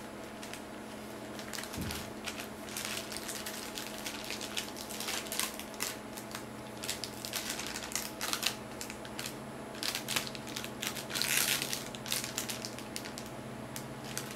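Clear plastic bag crinkling and crackling as it is handled, in quick irregular crackles with a longer, louder rustle about eleven seconds in, over a steady low hum.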